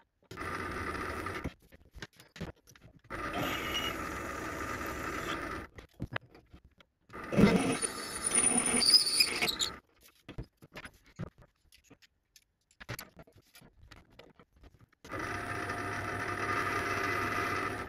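Paulimot PM190-V mini lathe running in four short bursts, each cut off suddenly: a steady motor whine and hum as tools cut into an aluminium block. The loudest burst, near the middle, is a large twist drill boring into the spinning block, with a high wavering squeal. The last burst is a boring bar opening up the hole.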